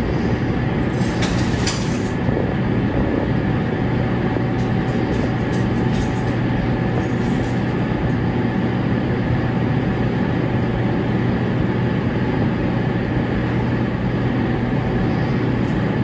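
A steady mechanical drone: an even rushing noise over a low hum.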